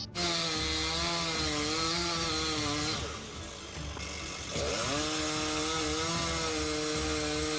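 Chainsaw running at high revs. It eases off about three seconds in and revs back up a second and a half later.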